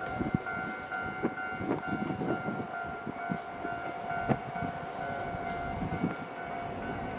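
A level-crossing alarm sounds steadily as a Shizuoka Railway electric train approaches the station, with low rail rumble and scattered knocks underneath.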